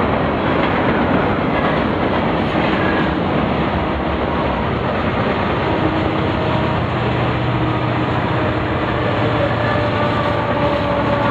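Freight train rolling past: the steady, loud rumble and rattle of boxcars, covered hoppers and tank cars on the rails. Some steady ringing tones rise over the noise from about halfway through.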